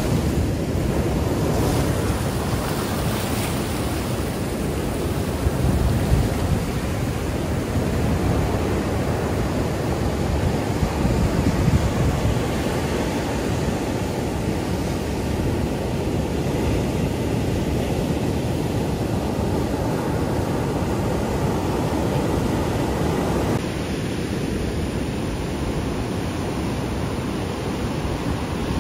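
Ocean surf on a beach: a steady rush of breaking waves, with wind buffeting the microphone. About 24 s in, the sound turns duller as the higher hiss drops away.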